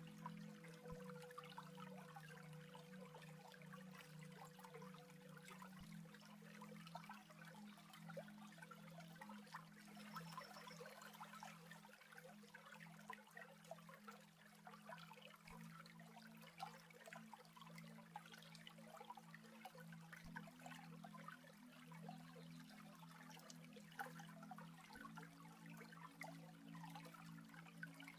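Faint stream of water trickling and babbling, over low held background tones that shift to new notes every few seconds.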